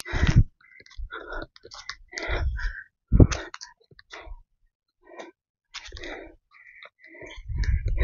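Footsteps on a dry forest trail: irregular clicks and crunches of leaves and twigs underfoot, with short gaps between steps. A low rumble comes in near the end.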